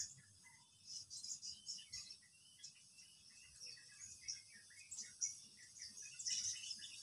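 Small birds chirping faintly: many short, high chirps, several a second, over a steady high hiss.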